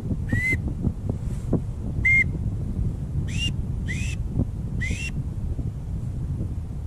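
A duck whistle blown in five short, slightly rising peeps: one, another about two seconds later, then three in quick succession, each with a breathy hiss. Wind rumbles on the microphone throughout.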